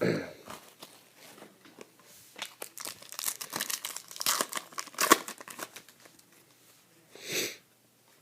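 Trading-card pack wrapper being torn open and crinkled: a dense run of sharp crackles in the middle, then a short rustle near the end.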